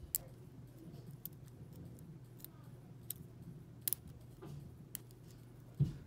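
Sparse sharp clicks and ticks of a steel hook pick and tension wrench working the pin tumblers of a brass S&L padlock, about one a second, with a louder knock just before the end, over a faint steady low hum.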